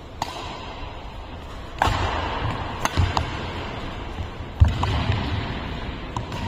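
Badminton rally: sharp cracks of rackets striking the shuttlecock, a second or two apart, mixed with the thuds of players' shoes landing and lunging on the court floor.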